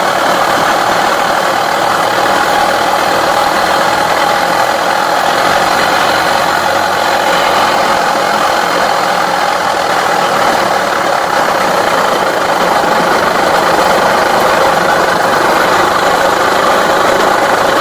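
Tohatsu 4hp two-stroke outboard motor running steadily, with a rattling knock from its worn main bearings, which the owners put down to the engine having been underwater.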